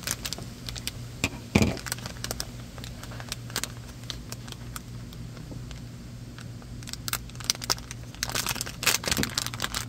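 Foil blind-bag packet crinkling and crackling as it is cut open and pulled apart by hand, with one sharper knock about a second and a half in and a dense run of crinkling near the end.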